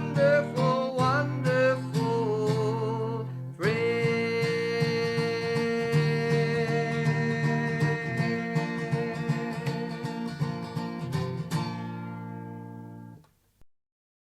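Closing of a worship song sung to acoustic guitar: a few sung phrases, then one long held final note over strummed guitar. A last strum near the end rings and dies away to silence.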